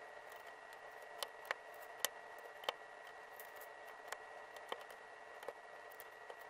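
LEGO bricks clicking as they are pressed onto the model and handled: about eight short, sharp plastic clicks at irregular intervals, the loudest around two seconds in.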